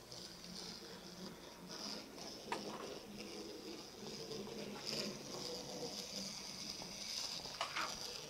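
Small electric motors of two model Smart cars on a Faller Car System road, whirring steadily as they drive along, with a couple of faint clicks.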